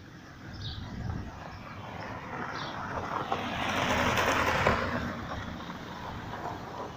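A vehicle passing by, its noise swelling to a peak about four seconds in and then fading. Two short high chirps come before it.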